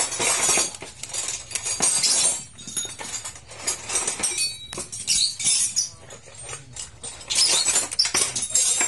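Metal clinking, scraping and rattling of tools and small parts being handled against a motorcycle engine, in quick irregular clusters of clicks with short pauses between them.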